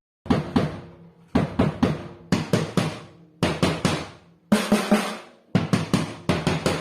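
Tajon Master FSA Plus compact drum kit (14-inch bass drum, 10-inch snare, 8- and 10-inch toms) being played in short groups of three or four quick strokes, about one group a second, each group ringing down before the next. Some groups have a clear low ringing pitch from the toms, and the kit is heard through a phone microphone.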